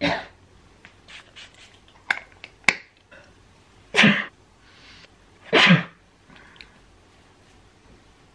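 A girl sneezing into her sweatshirt sleeve three times: once at the start, again about four seconds in and a third time a second and a half later. A few faint clicks and rustles come between the sneezes.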